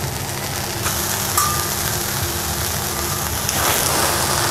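Sizzling on a hot teppanyaki griddle, growing louder about three and a half seconds in as sake squirted onto a stacked onion catches fire and flares up.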